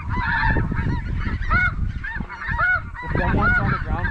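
Geese calling: a dense, steady chorus of short, high, arching honks, many overlapping. Wind rumbles on the microphone underneath.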